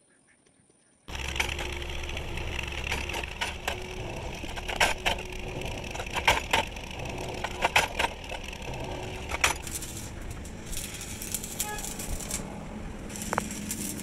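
Workshop machinery noise that starts suddenly about a second in: a steady mechanical din with frequent sharp knocks and clatter.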